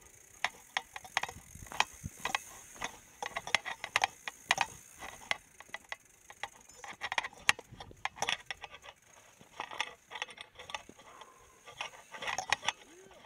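Mountain bike clicking and rattling in irregular clusters of sharp knocks, with the ratcheting of its rear hub as it rolls without being pedalled.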